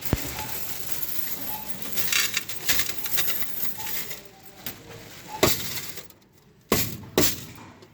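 Coins clinking and dropping as they are fed into a coin-to-banknote exchange machine: a rattling run of clinks, then a few single sharp clinks.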